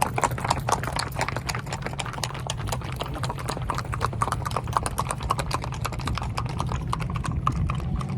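Horses' hooves clip-clopping in a rapid, continuous run of clops over a steady low hum.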